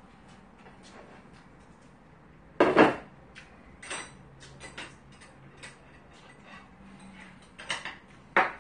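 Metal chopsticks and a spoon clicking and tapping against ceramic dishes: a scatter of small clicks, with a louder clatter about two and a half seconds in and again near the end.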